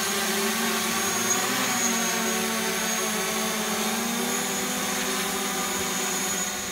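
Two small quadcopter drones, a DJI Mavic and a DJI Spark, hovering: their motors and propellers give a steady multi-tone buzzing whine with a high whistle on top. The lower tones drift slightly in pitch as the drones hold position.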